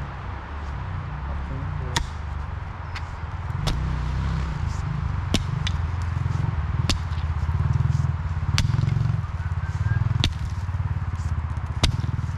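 A pickaxe chopping into dirt: about ten sharp strikes, one every second or so, over a steady low rumble.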